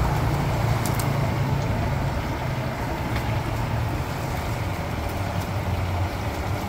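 Chicken pieces deep-frying in a large wok of hot oil, a steady sizzle over a low steady rumble. A few short metal clicks from the ladle against the wok, around one second in and again about three seconds in.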